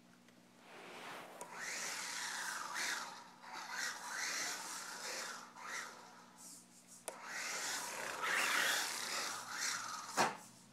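Brushed electric motor of an ECX Smash 1/18 RC truck whining up and down with the throttle as it drives over carpet, with a rasping gear and tyre hiss. A sharp click about seven seconds in and a louder knock near the end.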